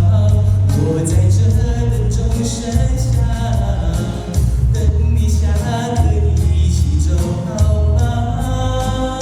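A pop song performed live: a voice singing over a backing of steady bass and cymbals.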